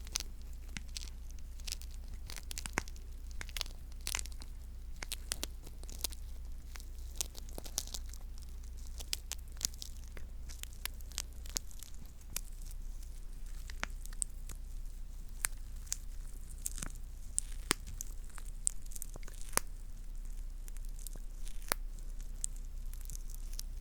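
ASMR sticky sounds: a tacky surface being pressed and peeled apart, giving irregular crackling pops and tearing snaps over a faint low hum.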